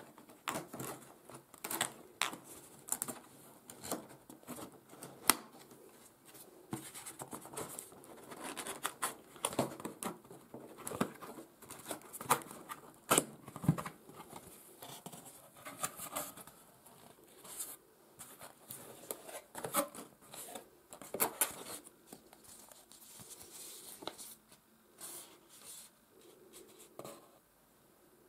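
Cardboard box being opened by hand: irregular scrapes, rubs and sharp taps of card as the lid is lifted off and the inner flaps handled.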